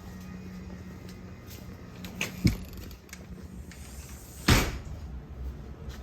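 A door being opened and shut: a couple of sharp clicks of the latch about two and a half seconds in, then a louder bang as it closes about four and a half seconds in. Under them a low steady hum fades out partway through.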